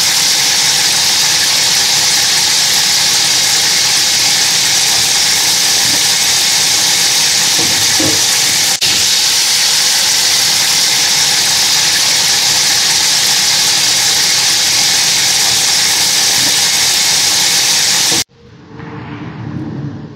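Steady, loud hiss with a brief break about nine seconds in, cutting off abruptly near the end.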